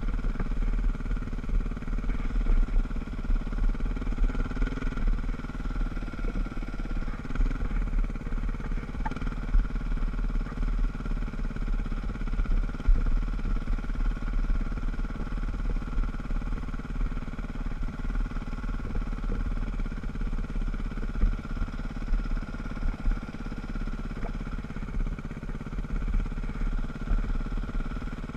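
Dirt bike engine running steadily at low speed, heard from a helmet-mounted camera, with wind rumbling on the microphone.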